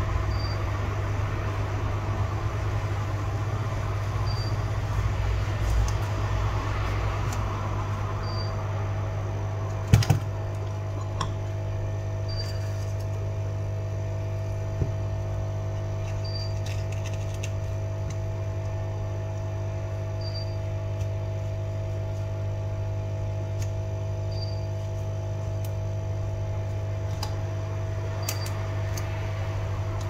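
Steady electrical hum of bench equipment, with a short high beep repeating every four seconds. One sharp click comes about ten seconds in, and a few light ticks of small tools or parts handled on the bench.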